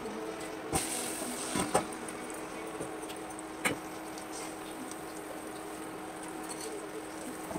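Beaten egg frying in hot oil in a nonstick frying pan: a steady sizzle, with a few sharp clicks of a utensil against the pan, three of them in the first four seconds, over a faint steady hum.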